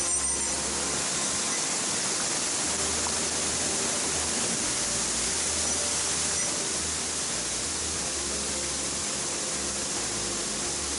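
Mountain stream water rushing over rocks: a steady, even hiss.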